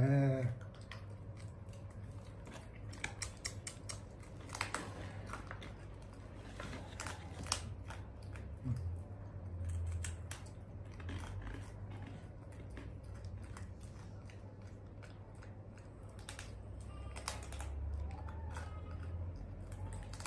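Scattered small clicks and crunches of a monkey chewing and handling dried banana, over a low steady hum.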